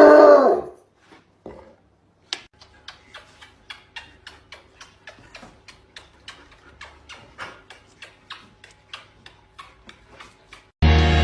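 A short call that rises and falls in pitch, then a steady run of light clicks or taps, about three a second. Music starts near the end.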